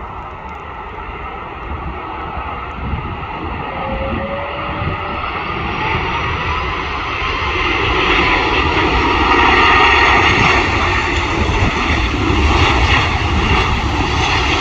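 Jet engines of an Airbus A330 freighter on final approach, a steady roar that grows louder as the aircraft comes in low and passes close and is loudest about ten seconds in. Faint whining tones rise slowly in pitch through the middle.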